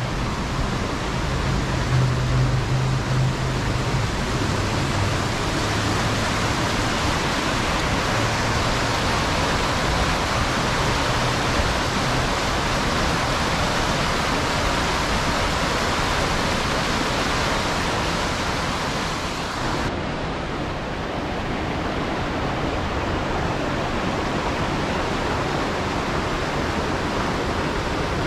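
Steady loud rush of water falling over a cascade in a mountain stream. About two-thirds of the way through, the rush turns slightly duller.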